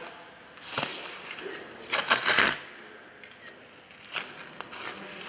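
Elastic adhesive bandage being pulled off its roll and wrapped around an ankle, in short rasping tearing bursts, the loudest about two seconds in.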